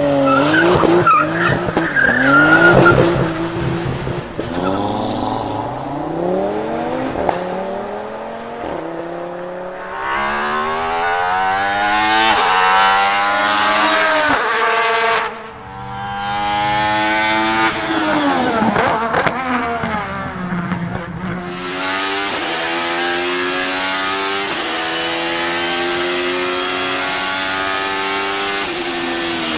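A high-performance car engine accelerating hard. The note climbs, falls sharply about halfway through, climbs again, then holds a steadier high note near the end.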